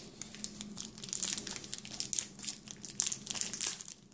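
Plastic packaging around a headphone cable crinkling and crackling as it is handled and worked open by hand, in quick irregular crackles that thicken about a second in.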